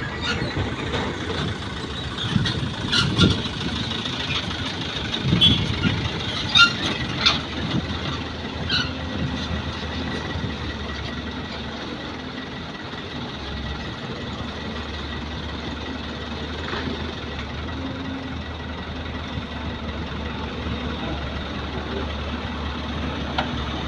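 Diesel dump truck engines running steadily at low revs, with a few sharp metallic clanks in the first nine seconds or so.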